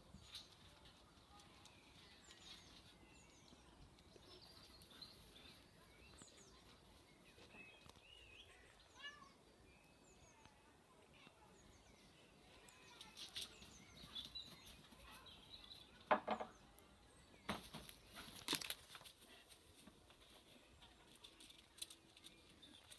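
Quiet outdoor ambience with small birds chirping faintly in the background. A few short knocks and rustles come close together about two-thirds of the way through.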